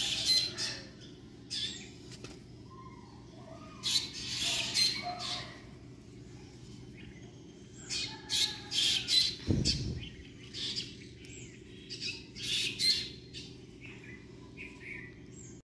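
Birds chirping and squawking in short, scattered bursts, with a single low thump about ten seconds in.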